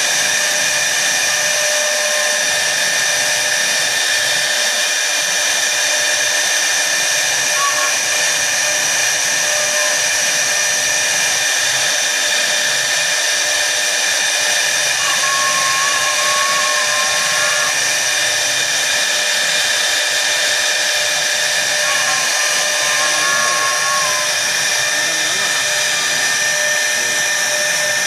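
CNC router spindle, an air-cooled high-speed spindle motor, running with a steady high whine as its bit engraves letters into a wood board. A few short wavering tones come and go over it.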